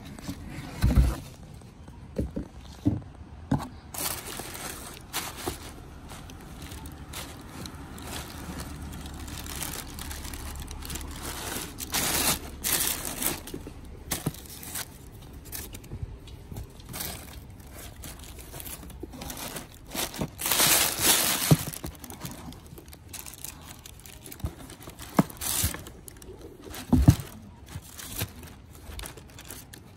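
Tissue paper rustling and crinkling in a cardboard shoebox as a pair of suede hiking boots is unpacked and handled, with scattered knocks and bumps from the box and boots.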